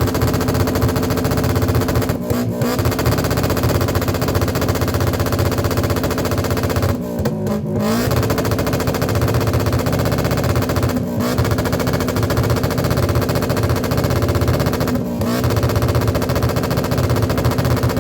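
Motorcycle engine and exhaust running at steady high revs with a rapid, staccato firing beat. The revs dip briefly about every four seconds.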